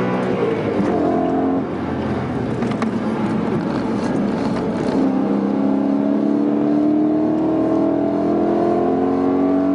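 e92 BMW M3's V8 engine running under load, heard from inside the cabin. It dips briefly just under two seconds in, then the pitch rises steadily through the second half as the car accelerates.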